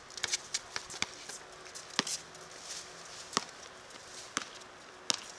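A series of irregular sharp knocks and taps: several close together at first, then about one a second.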